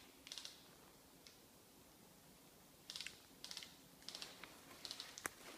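Near quiet, broken by scattered faint crackles and rustles of slow, careful steps through forest undergrowth, a few clustered in the second half.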